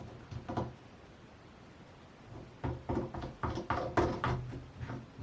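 Light clicks and knocks of a cabinet door and its screw-on knob hardware being handled as a knob is fitted and hand-threaded. A couple of faint clicks come early, then a quick run of small knocks in the second half.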